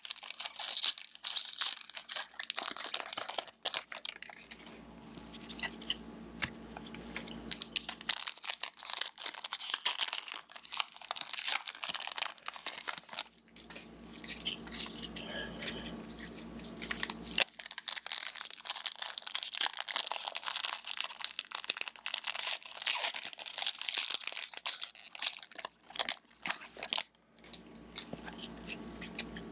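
Trading-card pack wrappers crinkling and tearing open, with cards handled and shuffled in a steady run of rapid crackles.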